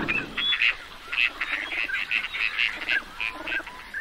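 Ducks calling: a quick, uneven series of short calls, several a second, with a few lower calls past the middle.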